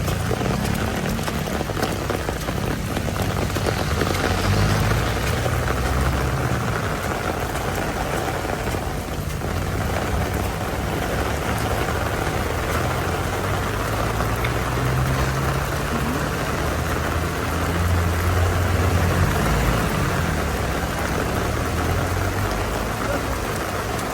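Heavy rain falling steadily, with the low hum of vehicle engines swelling and fading beneath it.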